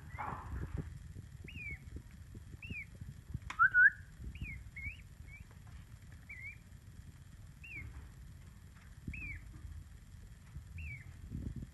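Peachick (baby peafowl) peeping: about a dozen short, high chirps, roughly one a second, with one louder rising call about three and a half seconds in, over soft taps and rustling as it pecks at bread held in a hand.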